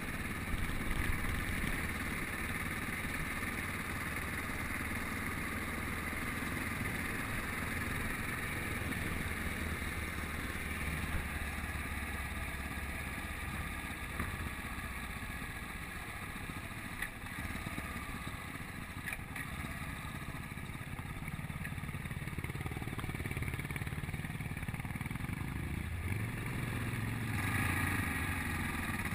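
Yamaha Ténéré adventure motorcycle's engine running while riding a forest track, mixed with steady wind noise on the camera. The engine pulls harder near the end, with a rise in revs.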